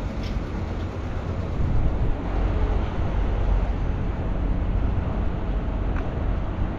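Kenworth semi-truck's diesel engine idling, a steady low rumble, with a faint click about six seconds in.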